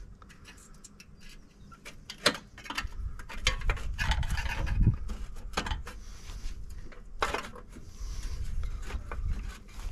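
Screwdriver scraping and prying at the sheet-metal top cover of a 1965 Rover Ranger ride-on mower's engine as the cover is worked loose. The sound is irregular metallic rubbing and clicking, with a sharp knock about two seconds in and another about seven seconds in.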